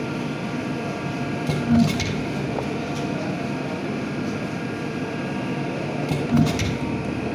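Swing-arm clicker press cutting leather with a steel die: two short thumps, about two seconds in and again near the end, as the press head comes down on the die, over a steady machine hum.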